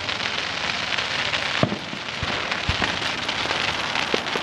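Aerial fireworks crackling densely, with a few sharp bangs scattered through.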